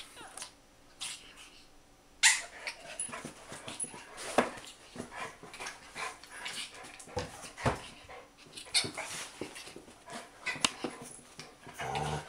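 Two dogs play-fighting: irregular scuffling and paw clicks on the rug and floor, with short yips and whimpers, and one sharp knock about two seconds in.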